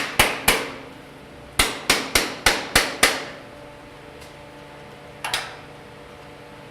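Light taps on the lint shaker's band clamp to click the center ring into place: a few sharp knocks near the start, a quick run of six, and one more later on.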